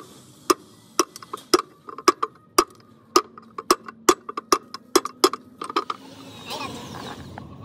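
Hammer tapping a punch to drive a new oil seal into its bore in a Massey tractor engine's cast cover. Sharp taps come about two a second, then stop about six seconds in, followed by a short rustle of handling.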